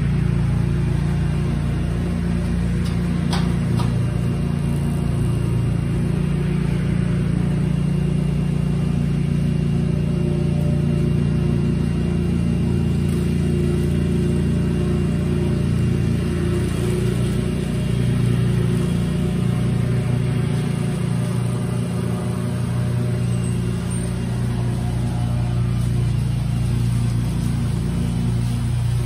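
A vehicle engine idling steadily, a low, even hum with a couple of light clicks about three seconds in.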